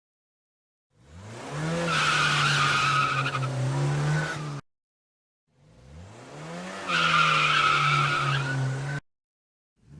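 Two car skid sound effects, one after the other: in each, a car engine revs up and holds while the tyres squeal with a steady high-pitched tone. Each cuts off abruptly, with a short silence between them.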